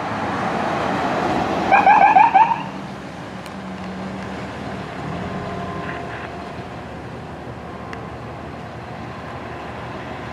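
Emergency vehicle siren giving a short, rapid yelp burst of quick rising chirps about two seconds in, over steady traffic and engine noise.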